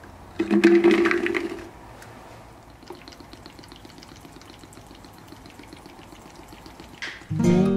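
Schisandra berries and syrup tipped from a mesh strainer into a jar, loudest for about a second near the start, then water poured in a thin steady stream from a plastic bottle onto the berries in a jar. Acoustic guitar music comes in near the end.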